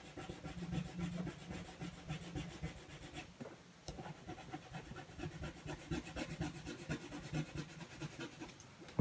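Orange coloured pencil scratching across black card in quick, repeated short strokes as fur is drawn in, with a brief pause about three and a half seconds in.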